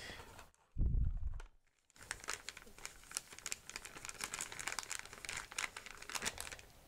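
Thin clear plastic bag crinkling and crackling in the hands as it is handled and opened, many small quick crackles. A short low thump about a second in.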